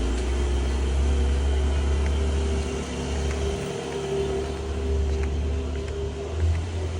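A car engine running with a steady low rumble that dips briefly about halfway through.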